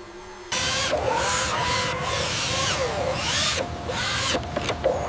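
Toy RC truck's small electric drive motor and gearbox whining, pitch rising and falling as it speeds up and slows, starting abruptly about half a second in.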